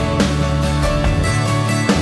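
Music: the soundtrack song, in an instrumental stretch between its sung lines.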